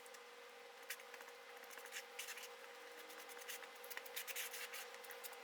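Metal spreader scraping and working short-strand fiberglass body filler as it is mixed with hardener: faint, irregular scrapes and small ticks.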